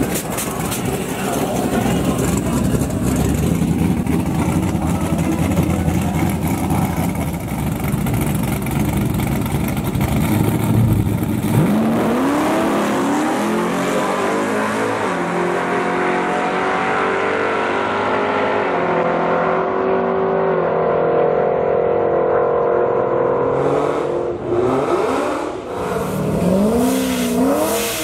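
Drag-racing cars, a supercharged C6 Corvette and a nitrous Fox-body Mustang, running loudly at the start line, then launching about twelve seconds in. Their engine notes climb in pitch and step through several gear changes as the cars pull away down the track, and the sound loses its highs as they get farther off. Near the end come a few short rushes of noise and an engine revving.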